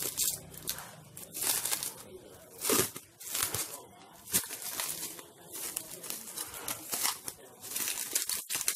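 Clear plastic wrap crinkling and tearing in irregular bursts as hands peel it off a small metal radio transceiver.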